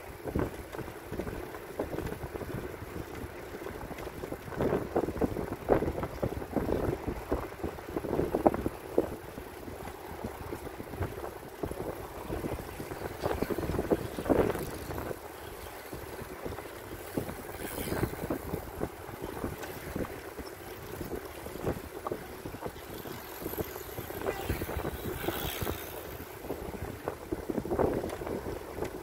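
Wind buffeting the microphone of a camera on a moving bicycle, over a steady rumble of tyres rolling on asphalt, with gusts swelling louder now and then.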